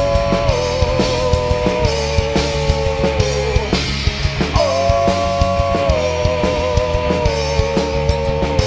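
Rock band playing live: drum kit, bass and electric guitars with a long held melody line that slides slightly down. The line breaks off a little before halfway and comes back with a second long held phrase.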